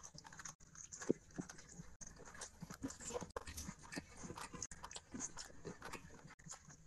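Close-miked wet chewing and lip smacks from someone eating rice and curry with their fingers, in quick, irregular clicks.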